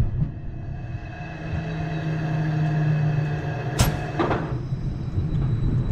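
Wooden roller coaster train rolling slowly along the final brake run: a steady low hum with a few higher tones, broken by a sharp clack about four seconds in and a softer one just after.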